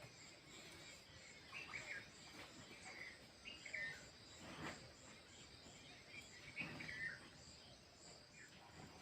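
Faint outdoor ambience: a bird chirping in short bursts now and then over a steady insect hum, with two soft knocks around the middle.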